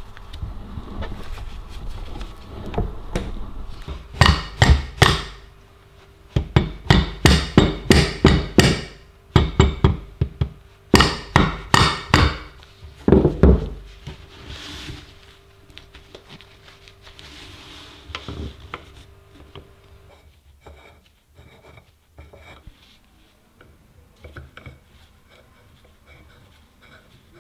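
Hammer taps on the metal parts of an antique hand-cranked grinder during reassembly, coming in several quick runs of sharp knocks and stopping about 13 seconds in. After that come only faint handling clicks.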